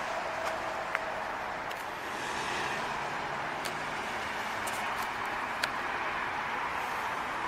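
Steady hiss of road traffic from passing cars, with a few faint clicks.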